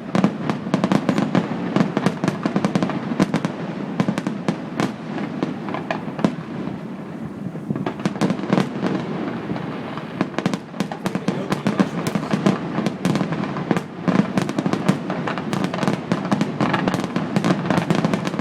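Fireworks display going off in rapid, dense volleys of bangs and crackles, thinning briefly about six to eight seconds in.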